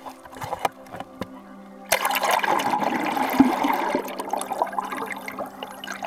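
Sea water splashing and rushing over the camera as it goes under the surface beside the kayak. A few sharp splashes come first, then a sudden loud rush of water about two seconds in that eases off over the last couple of seconds.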